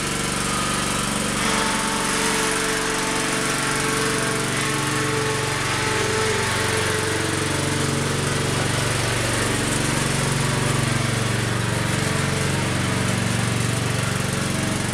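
Small engine of a Truxta 4x4 mini dumper running steadily while the loaded dumper is driven along, its pitch rising and falling slightly as it moves.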